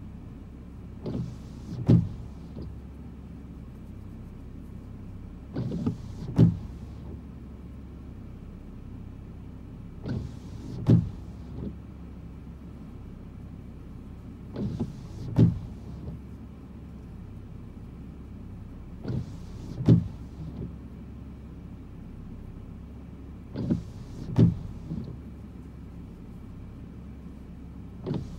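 Car windshield wipers on an intermittent setting, sweeping about every four and a half seconds. Each pass is a short swish ending in a sharp thunk, over the steady low hum of the car.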